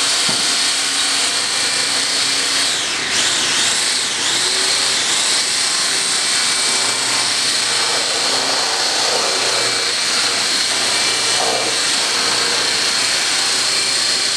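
Electric hand blender running steadily in a tub of milk-based ice cream mix, its motor giving a high whine that briefly sags in pitch about three seconds in and then recovers.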